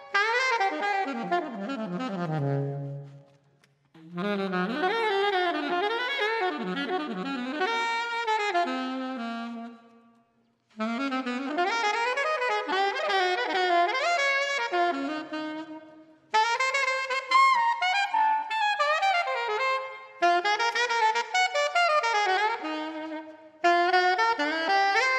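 Alto saxophone playing an unaccompanied jazz solo in fast running phrases that sweep up and down, broken by four short pauses.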